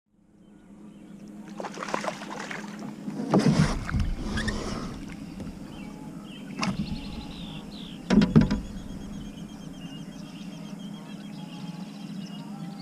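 Kayak out on the water: several knocking, splashy sounds over a steady low hum, with faint high chirping from about halfway through.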